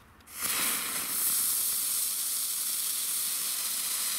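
Keller ground spinner firework catching about a third of a second in and spraying sparks with a loud, steady hiss, burning in place like a fountain.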